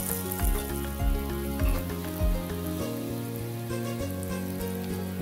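Background music with held notes and a steady beat that stops about halfway through, over the sizzle of batter rounds deep-frying in bubbling hot oil.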